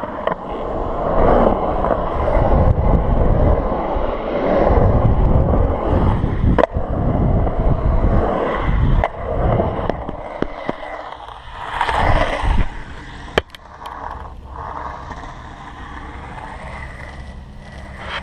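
Skateboard wheels rolling and rumbling over a concrete bowl, with a few sharp clacks of the board. The rumble drops to a quieter steady run about two-thirds of the way through.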